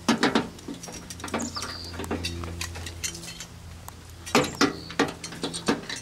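Irregular clicks, knocks and scrapes of hands working a rope through the metal of a microwave close to the microphone. A cluster of sharp knocks comes right at the start and another, the loudest, about four and a half to six seconds in.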